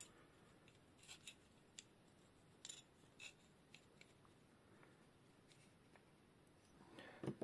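Faint, scattered clicks and light scrapes of small metal parts being handled and fitted together: a steel rod and its clamp fitting on a sharpening jig. A louder cluster of clicks comes near the end.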